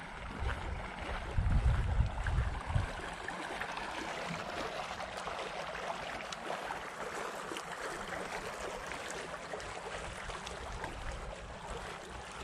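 A steady hiss of splashing water from a small garden fountain, with wind buffeting the microphone in gusts during the first three seconds.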